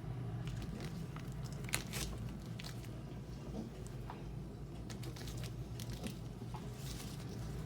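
A crisp hazelnut butter cookie being bitten and chewed, with irregular crunching crackles and a steady low hum underneath.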